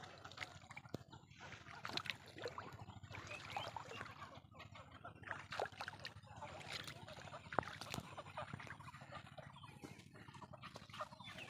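Flock of domestic geese and ducks calling on a pond: many short, scattered honks and gabbling calls.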